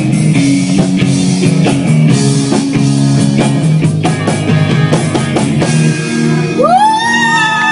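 Live rock band playing: electric guitar over a drum kit. Near the end a high voice comes in on the microphone, sliding up into a held, wavering note.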